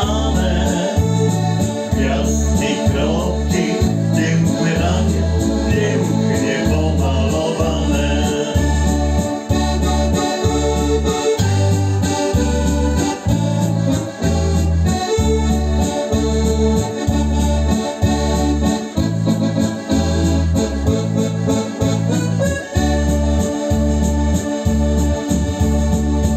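Electronic arranger keyboard playing an instrumental passage of a song: a melody over held chords and a steady, repeating bass line.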